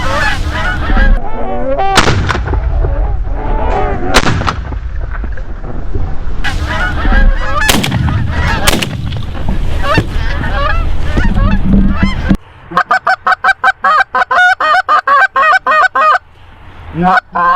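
Geese honking loudly and continuously while shotguns fire about five shots in the first ten seconds. After an abrupt drop in the background, a fast run of short, clipped honks follows, about five a second.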